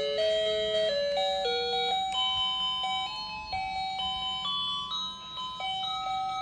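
Simple electronic melody of plain beeping notes, stepping through a tune at about two or three notes a second.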